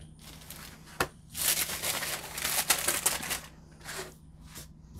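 Sheets of paper, coffee-dyed paper and a mini legal pad, rustling and sliding as they are handled. There is a sharp tap about a second in, a dense stretch of rustling in the middle, and two short rustles near the end.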